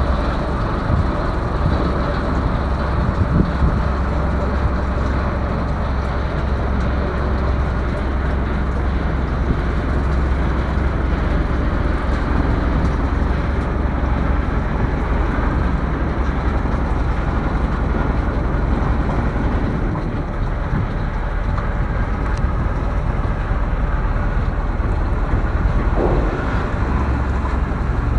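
Steady, loud drone of a Mekong passenger slow boat's engine, heard from on board while the boat is under way, mixed with the rush of water and wind.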